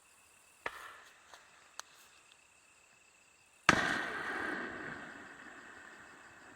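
Fireworks bursting: a sharp bang about a second in and a couple of small pops, then a much louder boom a few seconds in that dies away in a long rumbling echo. Insects trill steadily underneath.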